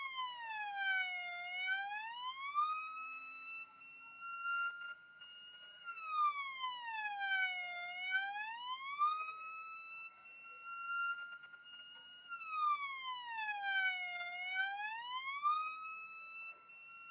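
Fire engine siren wailing slowly: its pitch sinks and climbs back three times, about every six and a half seconds, holding at the top in between.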